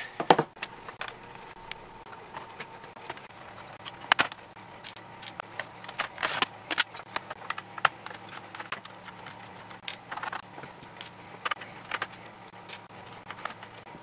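Irregular small clicks, taps and scrapes of a screwdriver and loose screws on the plastic underside of a Toshiba Satellite L505D laptop as its back panel screws are taken out, over a faint steady hum.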